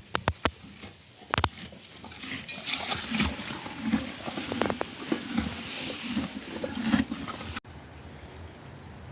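Horse sounds: a few sharp clicks at the start, then a run of short, low, breathy sounds lasting about five seconds, ending at a sudden cut.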